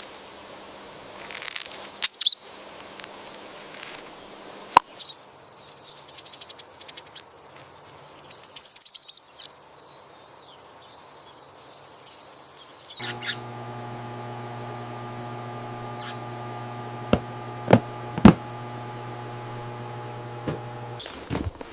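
Small bird chirping: a few short clusters of high, falling chirps. About halfway through, a steady low hum starts, with a few sharp clicks over it.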